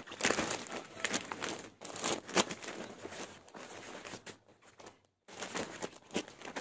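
Thin clear plastic sheeting crinkling and rustling as it is handled and smoothed over a padded vest, in uneven crackly spurts; the sound cuts out briefly about five seconds in.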